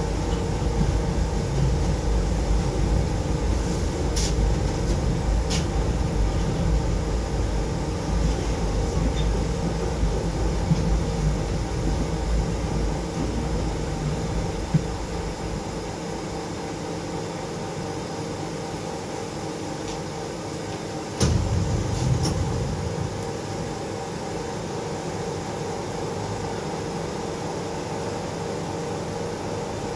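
Moscow monorail train heard from inside the car, running with a low rumble and a steady hum as it slows into a station. About halfway through the rumble drops away as it stops, leaving a steady hum, and a sudden loud clunk comes a few seconds later.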